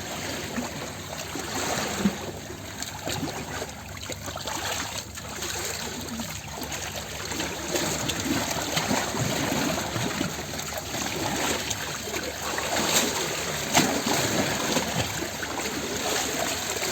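Ocean waves washing in: a continuous rush of moving water with small splashes. It eases off a few seconds in, then swells again, with a few sharper splashes past the middle.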